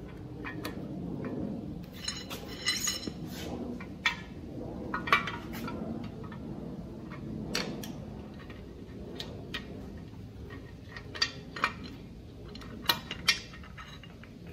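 Metal tools and parts clinking and tapping inside a bare 327 small-block Chevy engine block as the cam bearings are being removed. Irregular light clinks, with a short rattle about two seconds in and a few sharper clinks near the end.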